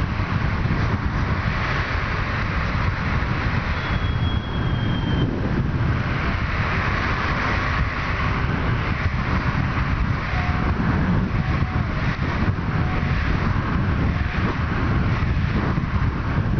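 Headwind rushing over a camera microphone shielded with a foam block, long-hair fur and foil, held out of a moving car at about 60 km/h, together with the car's road noise: a steady heavy low rumble under a rushing hiss.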